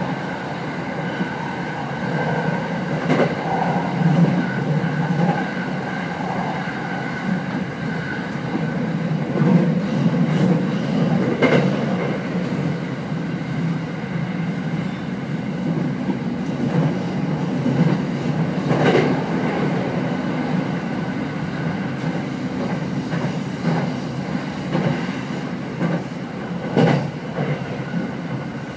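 Running sound inside a Rinkai Line 70-000 series trailer car, a car with no traction motors, while the train is under way: a steady deep rumble of wheels on rail, broken by about five sharp clacks of wheels passing over rail joints.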